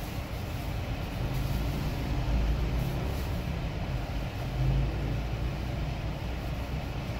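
Steady low rumble of a car engine, heard from inside the car, swelling slightly about two and a half and again about five seconds in.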